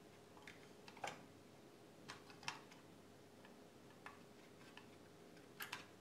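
Needle-nose pliers clicking against an op-amp chip and its socket inside an amplifier's metal case while gripping the chip to pull it out. A few light scattered clicks, the sharpest about a second in and about two and a half seconds in, with a quick pair near the end.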